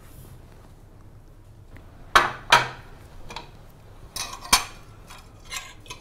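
Metal spoon and fork clinking and scraping against a ceramic plate of rice: a few sharp clinks a little over two seconds in, and more around four and a half seconds.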